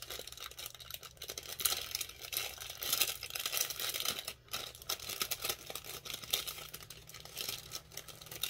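Clear plastic cellophane packet crinkling and crackling as it is handled and worked open by hand, with a short pause about four and a half seconds in.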